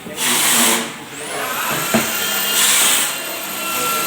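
Power tool used in machine assembly, running in two short hissy bursts about two seconds apart, with a sharp click between them and a thin high whine that rises about a second in and holds.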